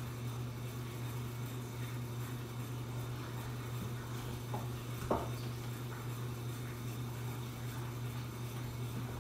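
Steady low room hum, with a faint tap about four and a half seconds in and a sharper click about half a second later.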